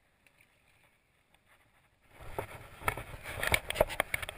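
Near silence for about two seconds, then a quick, irregular run of clicks, knocks and rustling close to the microphone that grows louder: handling noise while the angler walks with the rod.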